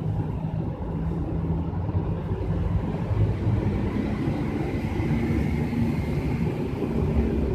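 Steady low rumble of vehicles, with a faint high whine in the second half.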